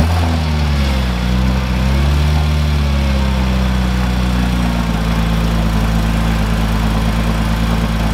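Porsche 987 flat-six engine, with its exhaust just modified, starting up: its pitch rises and falls for the first few seconds, then it settles into a steady idle about five seconds in.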